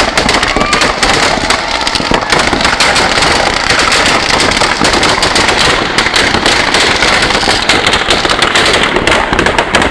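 Firecrackers packed inside a burning Ravana effigy going off in a rapid, unbroken string of bangs and crackles.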